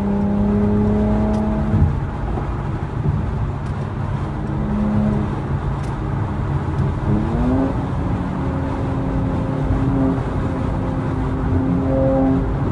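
Mercedes-AMG C43 engine and exhaust heard from inside the moving car: a steady drone that falls away about two seconds in, then climbs in pitch as the car accelerates around seven seconds in and settles into a steady, higher drone. The exhaust note is the engine's own, with no sound played through the speakers.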